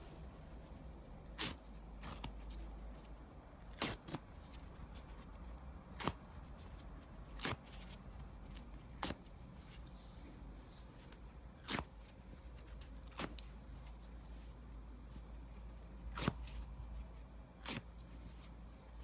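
Foam mattress being ripped apart by hand: about ten short, sharp tearing sounds, spaced one to two seconds apart.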